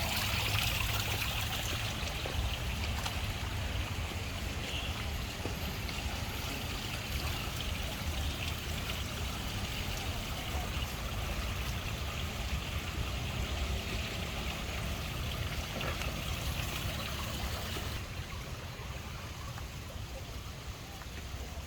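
Running water, a steady trickling stream, with a low rumble underneath that eases slightly near the end.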